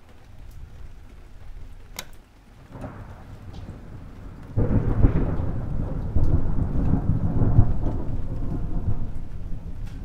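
Thunderstorm: steady rain, then a loud rolling clap of thunder breaks in suddenly about four and a half seconds in and surges again near six seconds before slowly dying away. A single sharp click comes about two seconds in.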